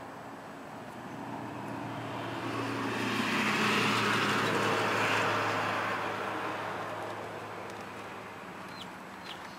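A motor vehicle passing by: its engine and road noise swell over a few seconds, peak in the middle and fade away.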